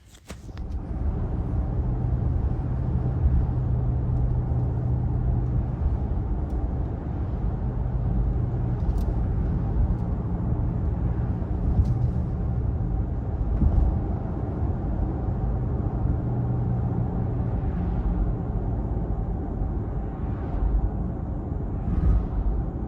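Steady road and wind noise inside the cabin of an Audi Q4 e-tron electric car at speed, with a low droning hum that is strongest for about the first fourteen seconds and then comes and goes. The drone is a slight buzzing vibration from the front of the car that appears above 55 mph; its cause is not yet known.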